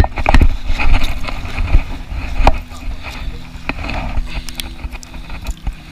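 Small waves washing at the shoreline under rumbling wind noise on the microphone, with scattered knocks and a faint steady low hum.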